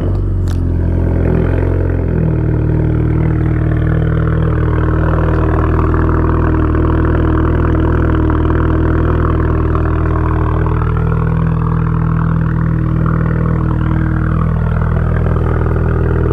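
Volkswagen Scirocco R's 2-litre turbocharged four-cylinder catches at the very start, changes note after about two seconds, then settles into a steady idle. It is heard close at the tailpipe through an exhaust with the back box and resonator deleted, pretty much a straight pipe.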